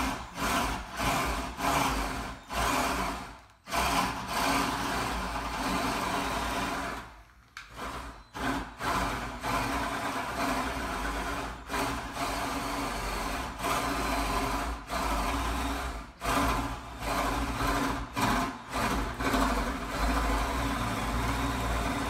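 Electric drill boring a one-inch latch hole into the edge of a door, running in bursts of a few seconds with brief stops between.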